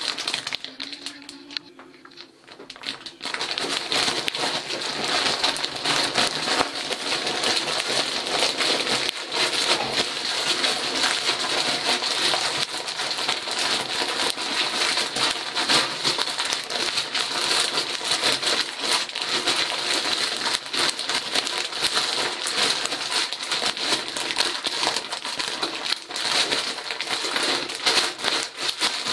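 A plastic bag of oyster mushroom grain spawn being squeezed and kneaded by hand: the plastic crinkles and the grains crackle and rustle as the matted, grown-together block is broken back into loose grain for spawning. It starts after a quieter moment about three seconds in.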